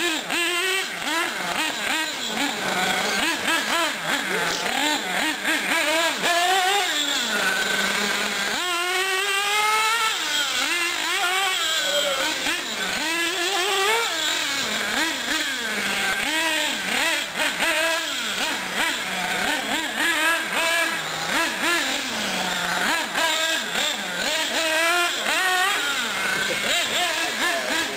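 Radio-controlled off-road cars running laps on a dirt track. Their motors rise and fall in pitch again and again as they accelerate and slow, with several overlapping at once.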